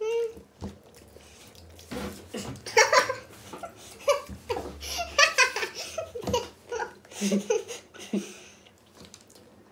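People laughing and giggling in a string of short bursts.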